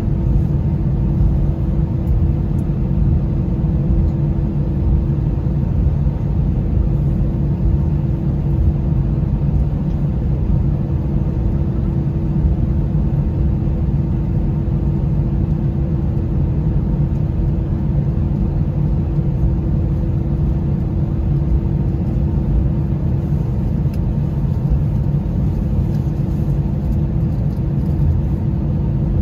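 Airliner's jet engines heard from inside the passenger cabin while taxiing: a steady low rumble with a constant hum.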